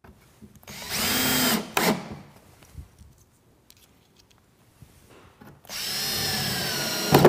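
Ridgid cordless drill boring pilot holes into pine and plywood, in two short runs of about a second each with a steady whine. Small clicks come between the runs.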